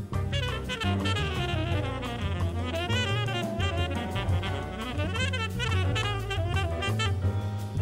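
Jazz ensemble playing, with a saxophone out front in winding, quickly moving lines over double bass and drum kit.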